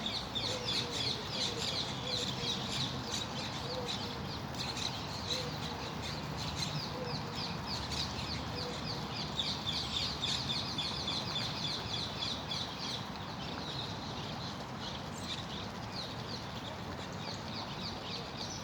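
A dense chorus of birds chirping rapidly and continuously over a steady rush of flowing water.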